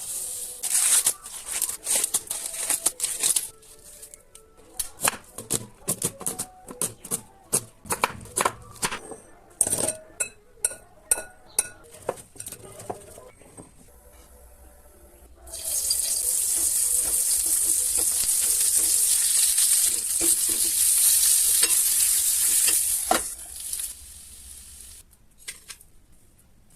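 Kitchen prep and frying of sweet corn on a tawa: for the first half, a run of sharp taps, clinks and stirring sounds from utensils, then about halfway a loud steady sizzle of the corn frying in the hot pan, lasting around eight seconds before it drops away.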